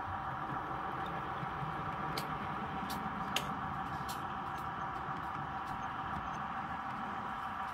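Model train running on the layout: a steady motor hum with scattered sharp clicks from the track, the loudest about three and a half seconds in.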